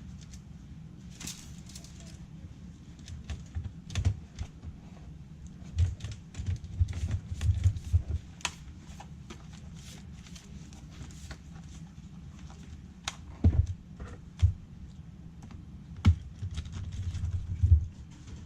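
Irregular sharp clicks and taps of handling a laptop and its small parts, with dull low thumps now and then, in clusters about 4, 6 to 8, 13 to 14 and 16 to 18 seconds in.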